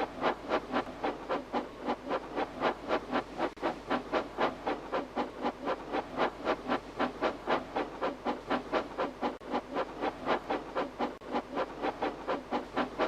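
Steam tank engine chuffing sound effect: a steady, even run of hissing exhaust chuffs, about four a second.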